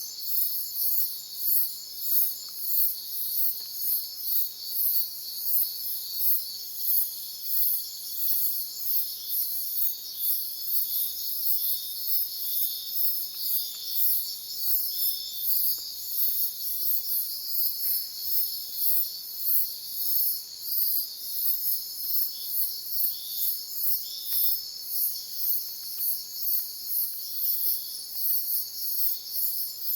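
Night chorus of crickets and other insects: a steady high trilling, with a still higher chirping over it that pulses evenly about two to three times a second.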